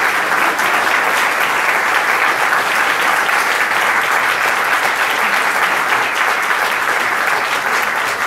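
A roomful of seated guests applauding, a dense, steady clapping that keeps up without a break.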